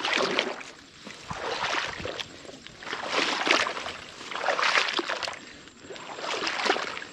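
A person wading through shallow water among rice plants, each stride giving a swishing slosh, about five strides in a steady rhythm.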